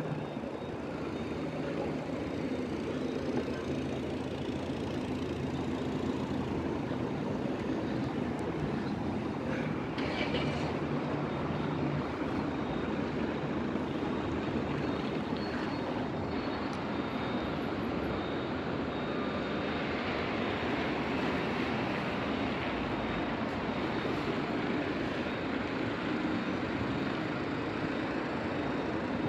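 Steady city traffic noise, with a low engine hum standing out over roughly the first twelve seconds.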